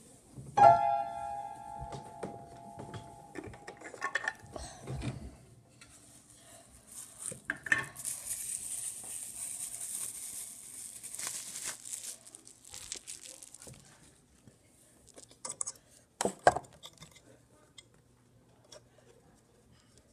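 Household objects being handled: something struck gives a clear ringing tone that fades over about three seconds, followed by light clinks and knocks, a rustling hiss in the middle, and a sharper knock near the end.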